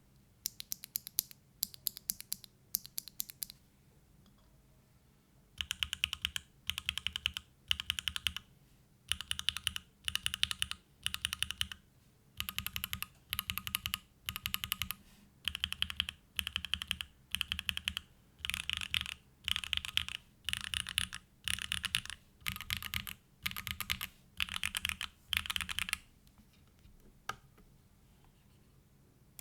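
Typing on a Mode Tempo mechanical keyboard with a carbon-fibre plate, hand-lubed Gateron Box Pink linear switches and GMK keycaps. A few short runs of key presses come first, then after a pause a long series of quick typing runs, about one a second, that stops near the end.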